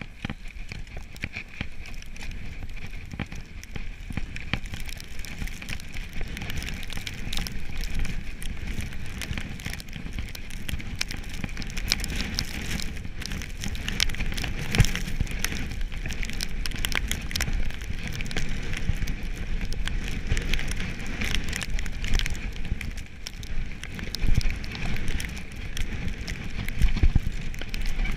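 Mountain bike rolling fast down a snowy trail: continuous crackling of the tyres over snow and stones, with the bike rattling and a few sharper knocks from bumps.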